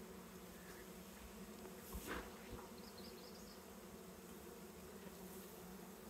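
Honey bees from a disturbed, agitated colony buzzing around an open top-bar hive as a faint, steady hum. A brief soft sound rises over it about two seconds in.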